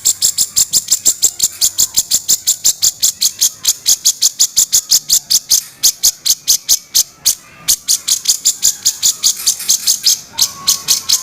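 Grey-cheeked bulbul (cucak jenggot) giving its harsh 'kasaran' rattle: a long, fast, even series of high, dry notes at about seven a second, with a brief break a little past the middle.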